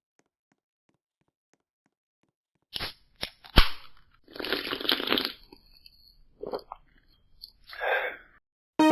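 Silence, then nearly three seconds in a run of crunchy chewing noises, with a sharp snap about a second later as the loudest moment and several shorter crunches after it.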